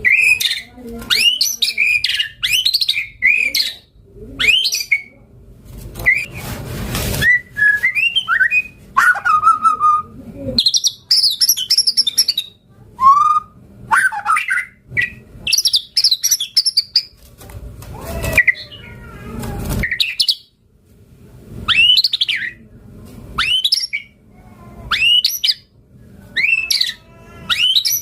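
White-rumped shama singing a varied song of short, loud whistled phrases with quick up-and-down sweeps, repeated every second or two with brief gaps. Two longer harsh, rasping stretches break in, one about a quarter of the way in and another past the middle.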